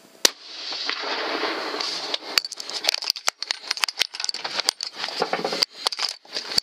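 A single rifle shot about a quarter-second in, picked up by the scope camera's microphone. It is followed by a rough, rustling hiss full of sharp clicks and crackles.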